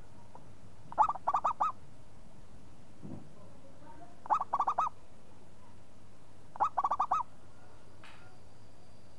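Zebra dove (perkutut) cooing: three short phrases about three seconds apart, each a first note followed by a quick run of three or four notes.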